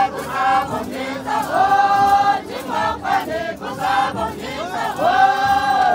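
A group of Naga performers in traditional dress chanting together in unison, singing a string of drawn-out, held phrases one after another.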